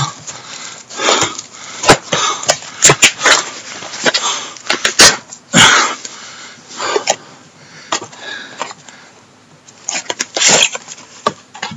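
Cardboard and plastic parcel packaging being torn and handled by hand: irregular crinkling and rustling with many sharp crackles, easing off for a moment just before the end.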